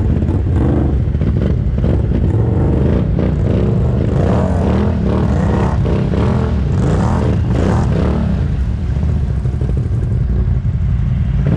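ATV engine running steadily while riding, with clattering and knocks from the machine throughout.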